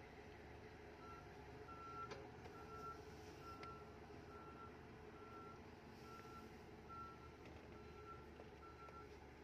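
Heavy vehicle's reversing alarm beeping: about ten single beeps of one steady pitch, roughly two-thirds of a second apart, starting about a second in. Underneath is the faint steady hum of truck and excavator engines working the pit.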